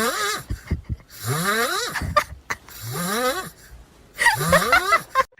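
A voice making four wheezy, harsh calls about a second and a half apart, each rising in pitch.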